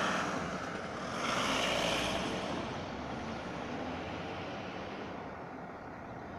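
Fire brigade van driving past close by, engine and tyre noise loudest in the first two seconds, then fading to a steady, lower vehicle noise.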